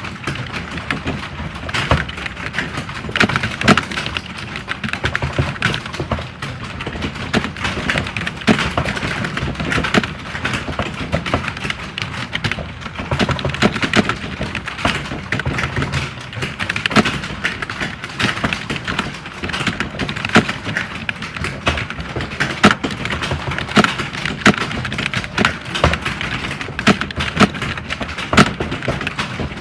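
Computer keyboards being typed on, a dense, unbroken clatter of overlapping keystrokes like a room of candidates typing at once during a typing test.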